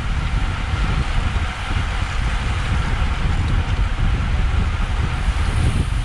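Wind buffeting the microphone of a GoPro on a road bike at racing speed: a loud, uneven low rumble with a rush of air over it.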